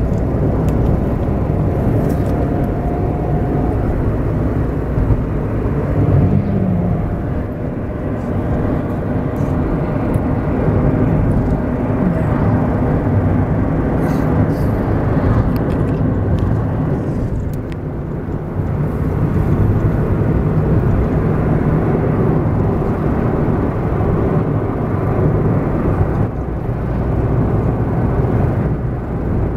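Steady engine and road noise heard inside the cabin of a moving car, dipping briefly about two-thirds of the way through.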